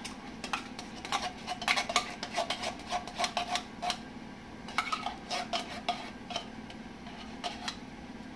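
Utensil clinking and scraping irregularly against a stainless steel skillet as condensed cheddar cheese soup is stirred into cooked ground beef, some strikes ringing briefly.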